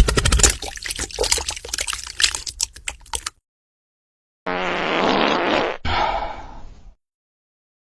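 Fart sound effects. First a wet, spluttering one trails off over about three seconds. After a pause comes a buzzing one in two parts, fading away at the end.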